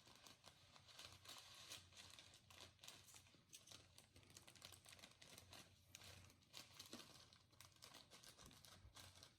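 Slime being squeezed and kneaded by hand: faint, sticky crackling and small pops, irregular and continuous.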